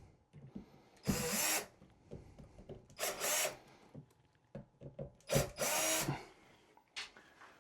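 Cordless drill/driver running in three short bursts, each about half a second long, driving screws home.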